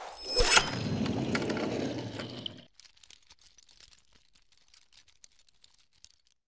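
Animated logo intro sound effects: a noisy whooshing sweep with a sharp hit about half a second in, cutting off after about two and a half seconds and leaving only faint scattered crackling ticks.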